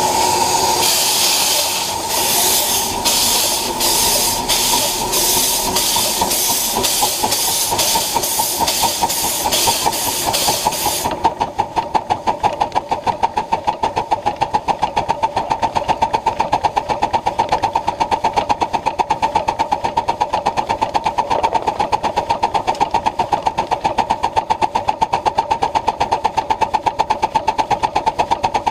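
A ridable live-steam Pacific locomotive working: hissing steam exhaust chuffs that quicken over about ten seconds. The exhaust then cuts off suddenly, leaving a fast, even beat and a steady tone as the train runs on.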